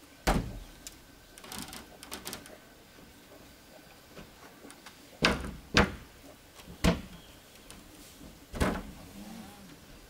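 Sharp knocks against a wooden plank wall: one just after the start and four more in the second half, irregularly spaced, with lighter taps about two seconds in.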